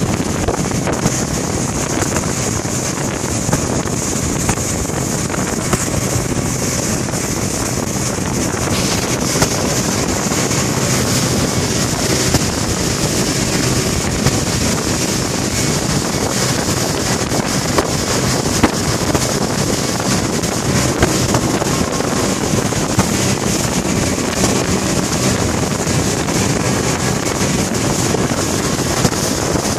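Small fishing boat on the sea: a steady mix of engine, water noise and wind buffeting the microphone.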